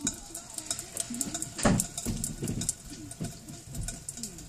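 Water dripping from a leaking ceiling into a stainless steel pot, irregular drips, with one louder knock nearly two seconds in.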